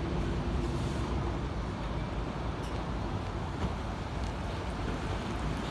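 Mercedes-Benz Citaro city bus driving slowly past at close range, its engine running as a steady low rumble with tyre noise from the wet road.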